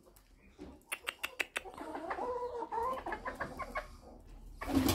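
Chickens clucking: a wavering, drawn-out call of about two seconds, after a quick run of sharp clicks. A loud noisy burst comes near the end.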